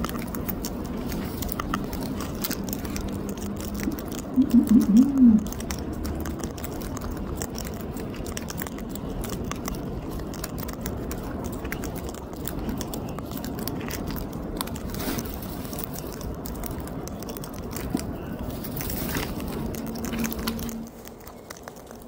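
Sulphur-crested cockatoo cracking and chewing seed with its beak, a dense run of small crunches and clicks. About four seconds in, a brief burst of low pitched vocal sounds is the loudest thing.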